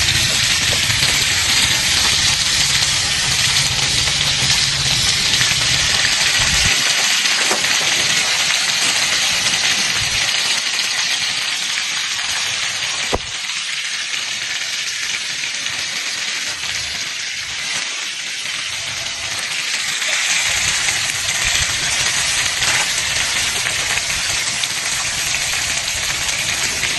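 Food sizzling and hissing steadily over an open wood fire, with a few faint ticks. A low wind rumble on the microphone comes and goes.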